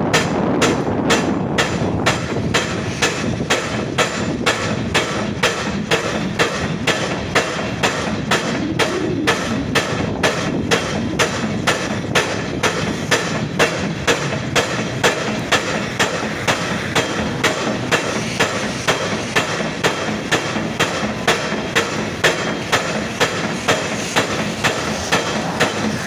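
Steady, repeated loud bangs of a pile-driving hammer striking steel sheet piles, a little under two blows a second, over a continuous din of machinery.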